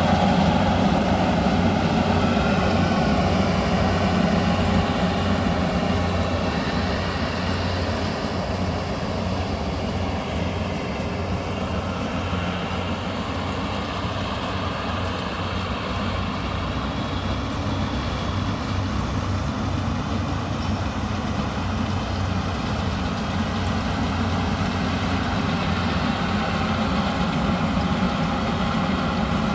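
Yanmar YH850 rice combine harvester's diesel engine running steadily, a little quieter in the middle and louder again toward the end.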